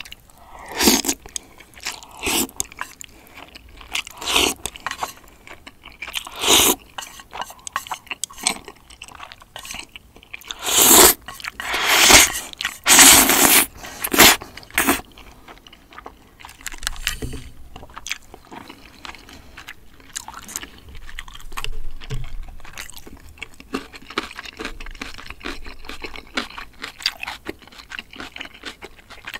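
Eating sounds: slurping cream-sauce spaghetti noodles and sipping sauce from a spoon, with a run of long, loud slurps around the middle, then softer chewing.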